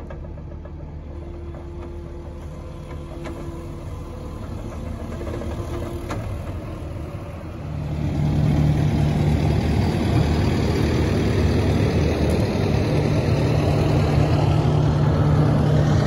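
Diesel engine running steadily, then about eight seconds in a louder diesel engine idling with a strong low hum takes over.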